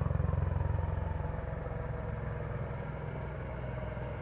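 Helicopter rotors beating in a steady low thrum that slowly grows fainter.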